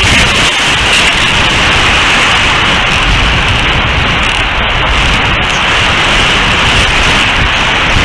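Strong wind blowing across an outdoor nest-cam microphone: a loud, steady rush of noise with low buffeting rumbles that swell about three seconds in.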